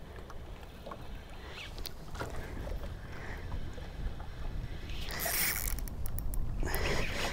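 Steady low wind and water noise on an open fishing boat, then two louder rushes of rustling noise about five and seven seconds in, with quick ticks between them, as the angler sets the hook on a lake trout and starts reeling.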